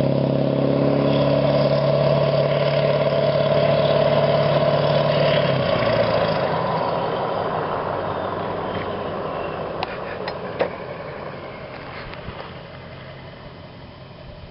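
A 7.3-litre Power Stroke turbo-diesel V8 in a Ford F-250 running through a 4-inch straight-pipe exhaust. It holds a steady, loud note for about five seconds, then fades away gradually as the truck moves off, with a few faint clicks near the end.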